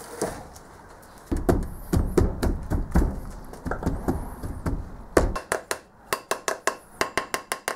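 Moulding sand being packed down by hand into a wooden casting flask with a run of dull thumps, followed by a quick series of sharp taps from a wooden rammer rod, about six a second, that stops suddenly.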